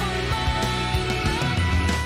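Background music: a song with a steady beat.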